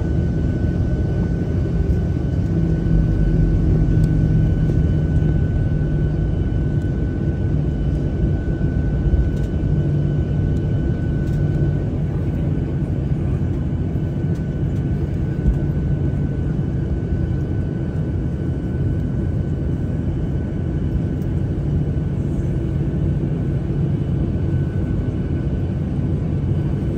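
Cabin noise of a Boeing 737-700 taxiing after landing: the steady low rumble of its CFM56-7B engines at idle thrust, heard from inside the cabin. A thin, steady high whine runs above it and is weaker after about twelve seconds in.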